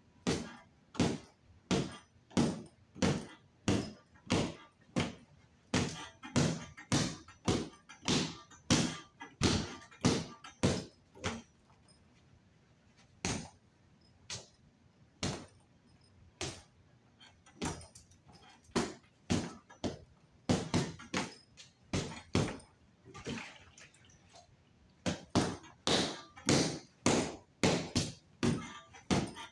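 Punches landing on an Everlast free-standing punching bag: a steady run of sharp thuds about two a second, thinning to a few scattered hits in the middle and picking up again into a quicker flurry near the end.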